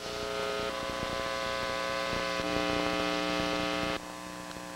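Sustained electronic keyboard chords, shifting to new notes twice and cutting off suddenly about four seconds in, leaving a faint hum.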